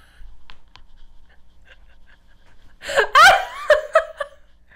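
A woman laughing: faint breathing for about three seconds, then a short, loud burst of laughter that trails off after about a second.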